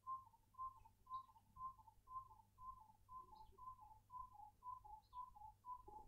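Burchell's coucal calling: a faint, long series of paired hollow hooting notes, about two pairs a second, sinking slightly in pitch.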